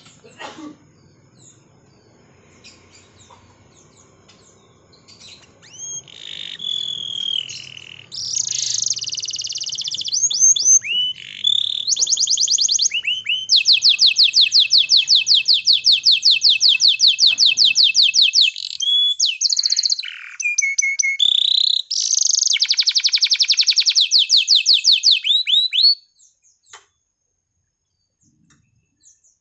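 Male canary in breeding condition singing to call a female: soft scattered chirps, then a loud song from about six seconds in, with long rapid trills and rolls, that stops suddenly near the end.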